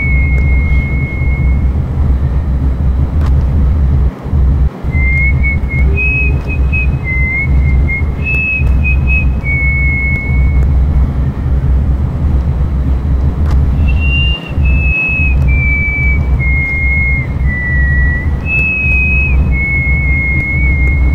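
A high whistle-like tone picking out a slow tune, one pure note held for about half a second to a second at a time and stepping up and down between a few pitches, with pauses, over a loud steady low rumble.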